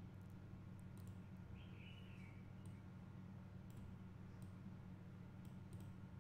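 Faint computer mouse clicks, a few scattered single clicks, over a low steady hum.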